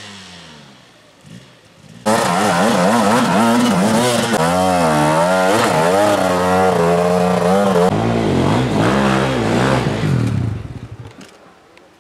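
Dirt bike engine revving hard and dropping back again and again as the rider works the throttle to get up a steep climb. It is loud and close, coming in suddenly about two seconds in and dying away near the end.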